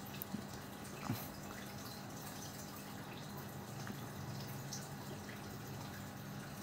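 Faint steady low hum of room background, with a few small clicks in the first second or so.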